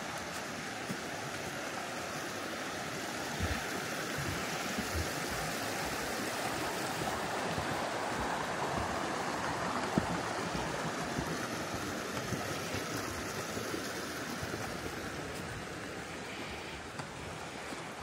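Fast-flowing rocky forest brook rushing over stones and small cascades: a steady rush of water that eases a little near the end. A few light knocks of footsteps on the wooden footbridge planks are heard over it.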